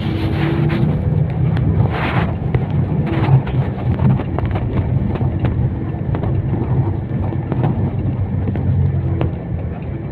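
A motor vehicle running on the road: a steady low engine and road noise with scattered small knocks and rattles.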